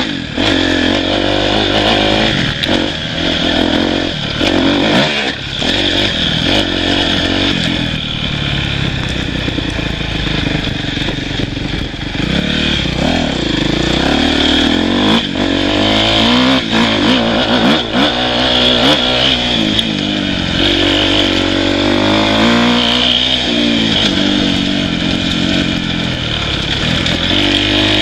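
Dirt bike engine revving up and down continuously as it is ridden along a rough trail, with scattered sharp knocks and clatter from the bike going over the ground.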